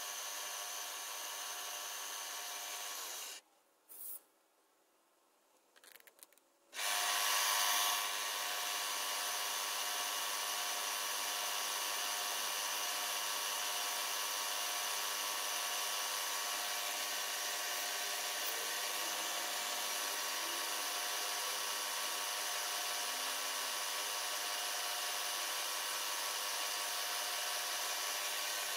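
Milling machine spindle running with a steady whine while an end mill spot-faces a cast-iron steam engine cylinder. After a few seconds' break it starts again, briefly louder, and runs steadily as a drill bores an oblique port hole into the cylinder.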